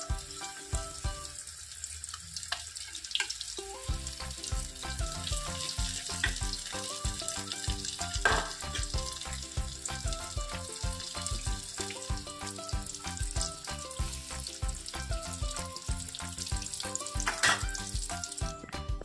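Oil sizzling steadily as chicken pakoras deep-fry in a steel kadai, with background music with a steady beat. The sizzle cuts out shortly before the end.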